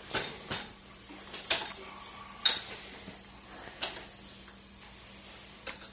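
Irregular sharp metallic clicks and clinks, seven or so, as an Allen key works the screws on a Buell motorcycle's front wheel to loosen them.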